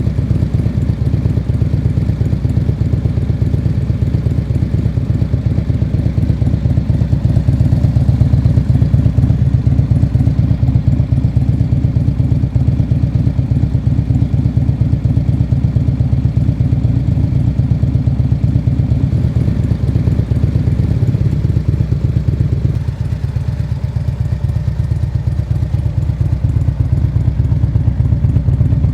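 Harley-Davidson touring motorcycle's V-twin engine idling through Vance & Hines Power Duals headers and Monster Rounds slip-on mufflers, a steady, deep pulsing exhaust beat. The level lifts slightly about a third of the way in and drops a little near the end.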